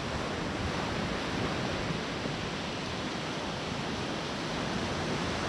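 Sea surf breaking and washing up a sandy beach: a steady rushing wash of waves.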